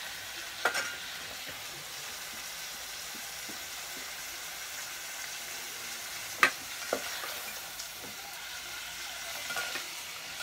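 Pork with onion and garlic sizzling as it sautés in a rice cooker's inner pot, stirred with a plastic rice paddle. A few sharp knocks of the paddle against the pot break through the steady sizzle, the loudest a little past halfway.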